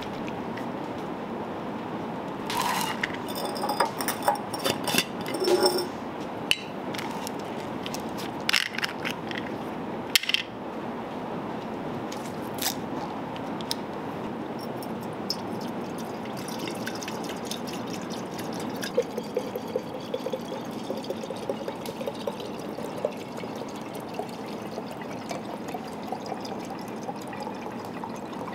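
Clicks and knocks of a plastic bottle being handled and its cap opened, then paraffin lamp oil poured from the plastic bottle into a glass Mason jar, a steady stream of liquid from about halfway in.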